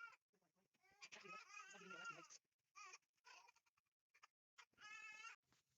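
Several faint, wavering high-pitched cries from a domestic animal, the longest lasting just over a second, starting about a second in.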